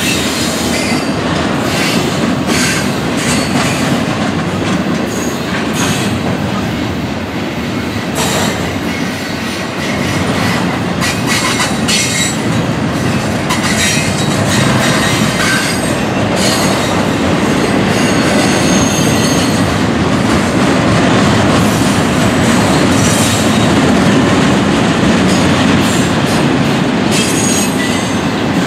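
Double-stack intermodal well cars of a freight train rolling past at close range: a steady wheel-and-rail rumble with irregular clanks and clicks, and brief high wheel squeals now and then. The rumble grows a little louder in the second half.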